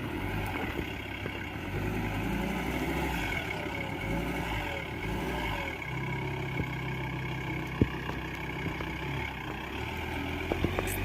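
Ford Ranger's 3.2-litre five-cylinder diesel engine running while driving, its pitch stepping up and down. There is a single sharp knock about eight seconds in.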